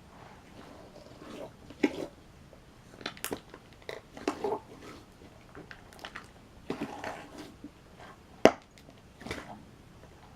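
Compound Kings slime squeezed and pressed by hand, giving a run of irregular wet squelches and fart-like pops as trapped air is forced out. The loudest pop comes toward the end.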